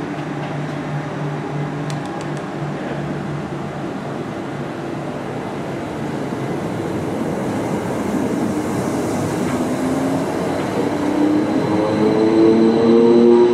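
Greater Anglia electric multiple unit pulling out of the platform with a steady hum. From about two-thirds of the way in, its traction motors whine in several tones that climb in pitch and grow louder as the train accelerates.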